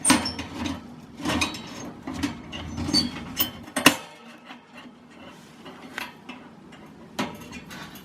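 Hard objects being handled and set down: a rapid run of clicks, clinks and knocks, the sharpest about four seconds in, then fewer and quieter.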